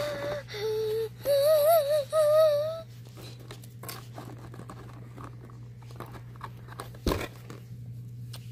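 A child's high, wavering wordless wail for about the first three seconds. Then soft clicks and rustling of plastic dolls and dollhouse pieces being handled, with one knock about seven seconds in, over a low steady hum.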